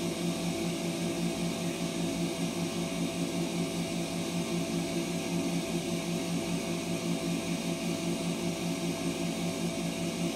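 Girbau 23 kg commercial washer-extractor running, a steady motor-and-drum hum that swells evenly two or three times a second.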